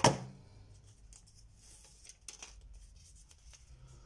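Paper and tape being handled on a tabletop: a sharp knock right at the start, then faint scattered rustles and small clicks as the sheet and linen tape are worked by hand.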